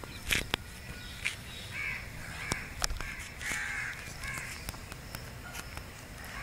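Crows cawing outdoors: a few short, harsh caws spaced a second or so apart, with scattered sharp clicks and taps in between.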